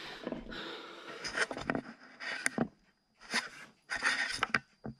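Close rustling and handling noise on a clip-on lavalier microphone, fabric brushing against it, in irregular bursts with a few small clicks.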